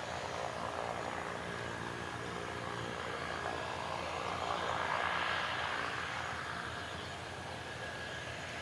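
De Havilland Canada DHC-6-300 Twin Otter's turboprop engines running as it taxis: a steady whine over a rushing propeller noise that swells to its loudest about halfway through, then eases.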